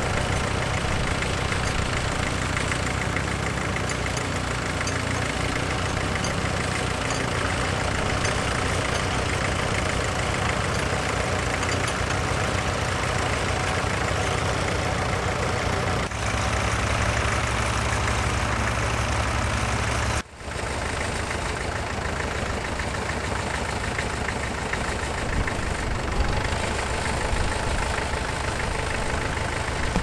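Vintage tractor engines running steadily while pulling ploughs. The sound breaks off briefly twice, about halfway and about two-thirds through, where the footage is cut.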